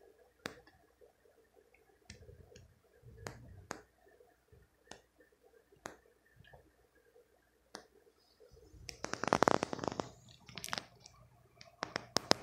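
Scattered sharp clicks and ticks at uneven intervals, with about a second of dense crackling rattle starting about nine seconds in, followed by a few more quick clicks near the end.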